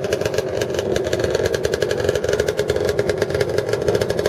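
Classic racing motorcycle engines idling together, running with a rapid, steady beat.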